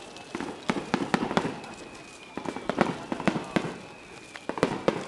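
Aerial fireworks shells bursting overhead: sharp bangs and cracks coming in quick, irregular clusters, three volleys in a few seconds.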